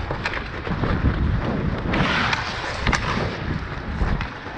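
Ice hockey skate blades scraping and carving on the ice, with a louder scrape about two seconds in and a few sharp clicks of sticks and puck, over wind buffeting the microphone.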